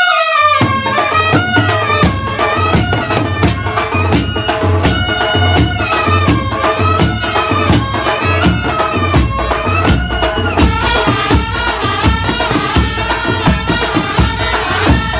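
Background music: a sustained melody that bends up and down in pitch, over a steady beat with a bass line.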